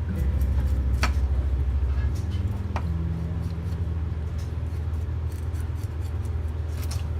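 Background music with low held notes that change pitch in steps. Over it, a knife clicks sharply against the cutting board a few times, about a second in and again near three seconds.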